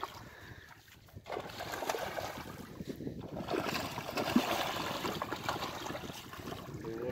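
Hooked fish splashing and thrashing at the water's surface as it is hauled in on a handline, the splashing picking up about a second in.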